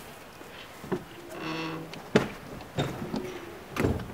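A few sharp knocks at irregular intervals, with a brief humming tone about a second and a half in.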